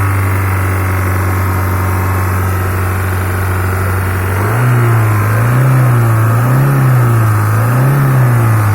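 Hyundai Santro car engine idling steadily, then from about halfway through revved lightly a few times, its pitch rising and falling about once a second.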